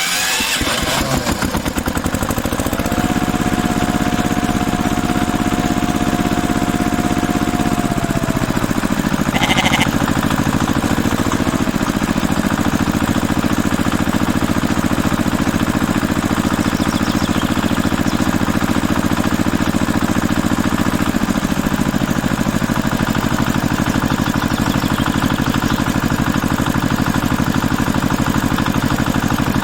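Small motor of a DIY miniature bulldozer running steadily with a fast, even pulse. A thin whine holds for a few seconds early on and then slides down and fades.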